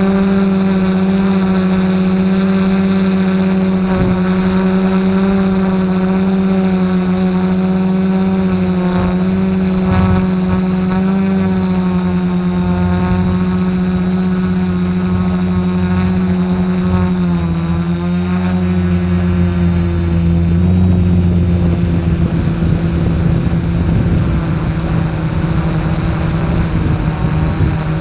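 Quadcopter drone on an F450 frame: its four brushless motors and propellers hum steadily, heard close up through the SJ4000 action camera mounted on the drone. The pitch steps down slightly a little past halfway.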